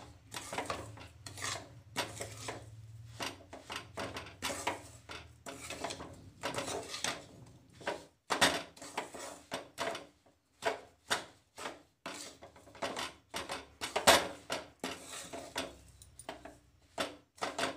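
Steel spatula scraping and stirring a thick, crumbly bread-crumb and cream mixture around a steel kadhai, in an irregular run of rasping strokes with an occasional sharper knock against the pan.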